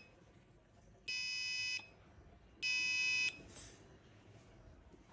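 Arduino-driven passive buzzer giving two buzzy electronic beeps at a 1000 Hz tone, each under a second long and about a second apart. It sounds only while the push button is held down.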